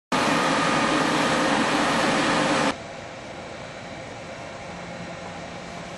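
ÖBB Taurus electric locomotive running close by: a loud, steady rush of running noise with a few steady whining tones in it, which cuts off abruptly about two and a half seconds in and gives way to a much quieter, steady hiss.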